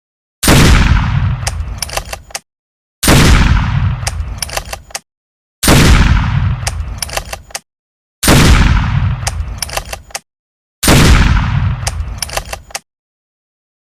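Sound effects of an L115 sniper rifle in a video game: five shots about two and a half seconds apart. Each is a loud boom that dies away over about two seconds, with a few quick clicks in its tail.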